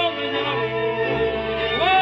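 A man singing a folk song in full voice over instrumental accompaniment, holding long wavering notes, then sliding up into a high held note near the end.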